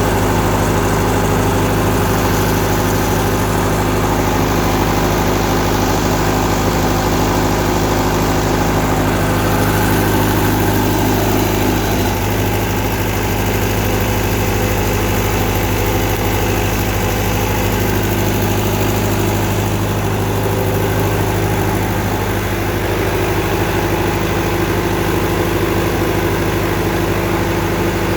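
Four-cylinder diesel engine of a Tsuzumi TD30 30 kVA open-frame, water-cooled generator running steadily at an even speed.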